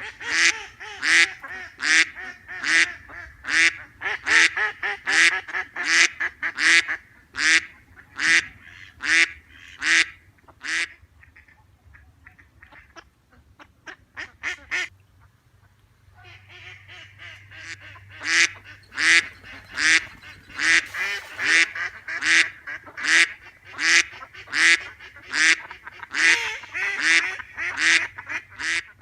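Duck quacking over and over in an even rhythm of about one and a half quacks a second, loud and harsh. About eleven seconds in it drops to a few softer quacks, and the steady run starts again about five seconds later.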